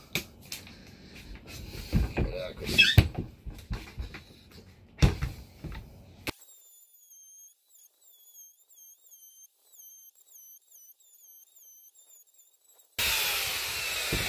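Knocks and clatter as a handheld electric router and a timber beam are handled on a wooden floor, then several seconds of near silence with only a faint, high warbling tone. Near the end the router runs loudly, its whine sliding down in pitch.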